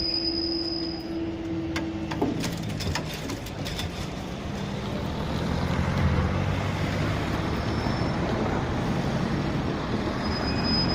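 Class 142 Pacer diesel multiple unit standing at the platform: a steady squeal stops about two seconds in, then a cluster of clicks, then its underfloor diesel engines running steadily, a little louder from about halfway.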